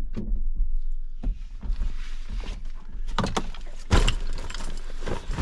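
A vehicle's rear door being opened and a backpack set down and shifted on the back seat: a series of knocks and bumps, the loudest about four seconds in, with rustling of the pack in between.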